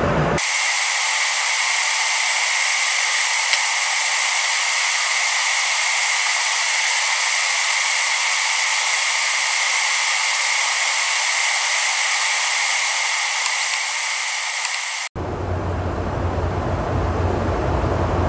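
In-flight noise aboard a KC-135 Stratotanker during aerial refuelling: a steady high hiss with no low end. About fifteen seconds in it drops out for an instant and cuts to a fuller, deeper cabin drone with a low hum, as heard inside the boom operator's pod.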